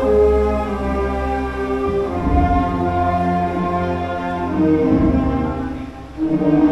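Orchestral music with bowed strings playing long held notes. It dips briefly about six seconds in, then a new phrase begins.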